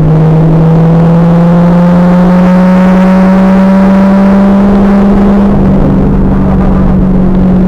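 2000 Pontiac Trans Am Firehawk's LS1 V8 pulling under load, its note climbing steadily, then falling about five and a half seconds in. The sound is loud and harsh on the car-mounted camera's overloaded microphone.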